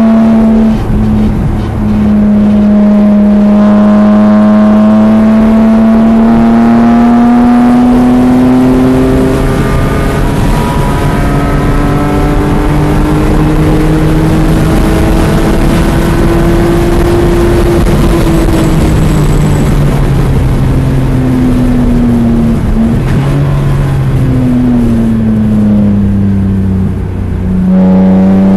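BMW E46 M3's straight-six heard from inside the cabin, pulling at full throttle down a long straight with its pitch climbing slowly. About two-thirds of the way through the pitch drops away as the car lifts and brakes, falling in steps through downshifts, then climbs again near the end as it accelerates out of the turn. Wind and tyre noise run underneath.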